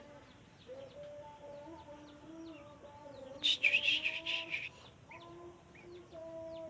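Yellow-vented bulbul (trucuk) calling: a loud burst of chattering chirps lasting about a second, halfway through, with scattered faint chirps before and after.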